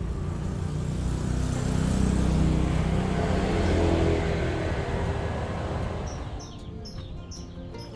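A passing vehicle's engine noise, swelling over the first few seconds and fading away near the end.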